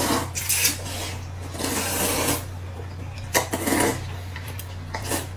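Rice noodles being slurped from a bowl of broth in about three long, hissing pulls, over a low steady hum.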